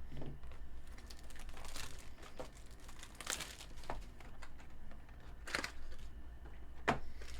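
Trading-card pack wrappers crinkling as they are handled and opened, in several short rustles over a steady low hum.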